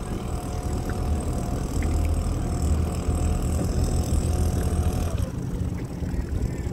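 Boat engine running steadily at low speed, a low hum with a faint whine above it; both ease off about five seconds in.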